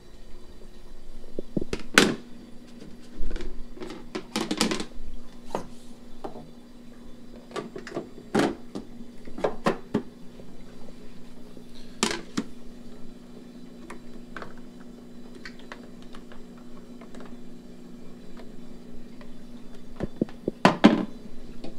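Power cords and equipment being handled and tucked into place: scattered knocks, clicks and light rattles, the loudest about 2, 8, 12 and 21 seconds in, over a steady low hum.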